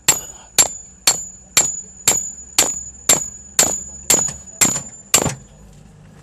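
A metal tool used in place of a hammer tapping on a wrench to break loose a 17 mm brake caliper nut on a Toyota Coaster bus: about a dozen ringing metal-on-metal strikes at roughly two a second, stopping about five seconds in.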